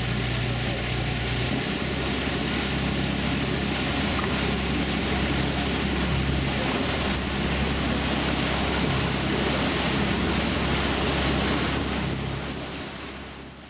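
Motorboat under way: its engine running with a steady low hum beneath the rush of churning wake water. The sound fades out near the end.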